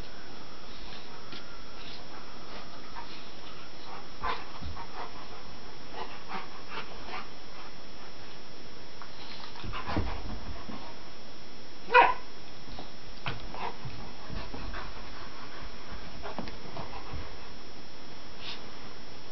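A Great Pyrenees adult and puppy play-wrestling, making scattered short dog vocal sounds and scuffles, with one short, loud yip about twelve seconds in.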